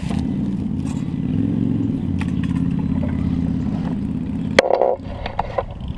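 Axial SCX10 II RC crawler's electric motor and geared drivetrain running under load as it crawls over rocks, a steady drone. About four and a half seconds in the drive drops off with a sharp knock, followed by a few light clicks.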